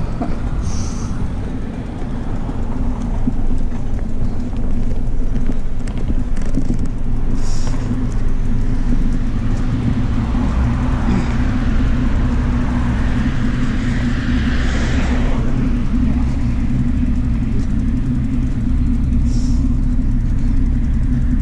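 Steady low rumble of riding noise on a bike-mounted camera's microphone. A car passing on the road alongside swells and fades from about ten to fifteen seconds in.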